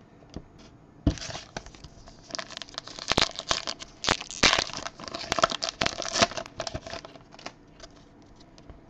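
Thin clear plastic crinkling and rustling in the hands while a trading card is handled in it, a run of crackles and sharp clicks lasting about six seconds.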